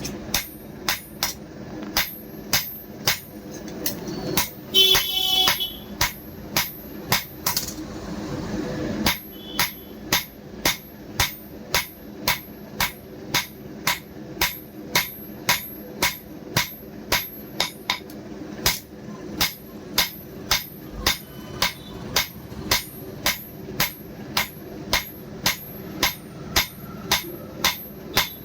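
Hand hammer striking steel on an anvil in steady blows, about two a second, each with a metallic ring, pausing briefly about eight seconds in.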